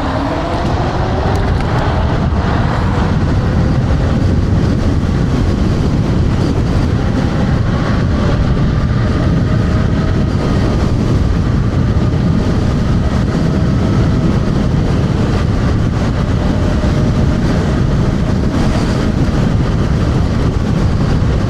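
Wind rushing over the microphone and road noise from a TRBK M2 electric scooter being ridden at speed, with the motor's faint whine rising in pitch over the first couple of seconds as it speeds up, then holding steady.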